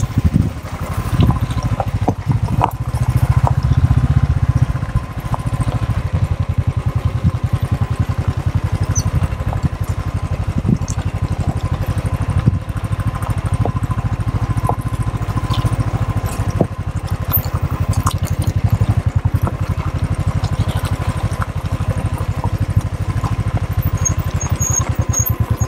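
Royal Enfield Thunderbird 350's single-cylinder engine running at low speed under a rider on a rough gravel trail, a steady low thump of firing pulses. It pulls harder for a few seconds near the start, and a few sharp knocks come in over the ride.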